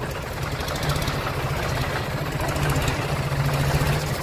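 Diesel tractor engines idling with a steady low rumble.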